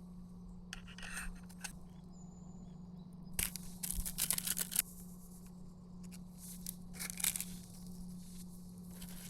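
Rustling and crinkling handling noise in three short bouts, the loudest in the middle, over a low steady hum.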